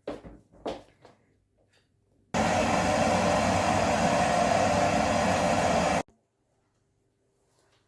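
Vacuum cleaner running steadily for about four seconds, starting and stopping abruptly, after a couple of light knocks.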